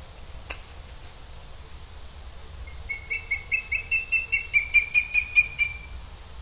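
Booted eagle calling: a rapid series of about fifteen high, clear notes over nearly three seconds, growing louder toward the end.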